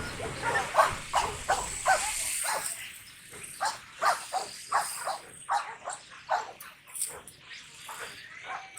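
A dog barking over and over in quick succession, about two to three short barks a second.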